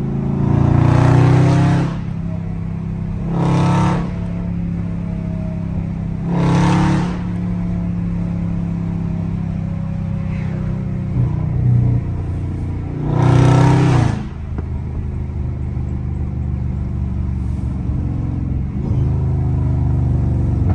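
Straight-piped Dodge Charger Scat Pack's 392 Hemi V8 droning steadily at cruise, heard from the driver's seat. Four short, loud bursts of throttle break in: about a second in, near four seconds, near seven, and a longer one around thirteen to fourteen seconds.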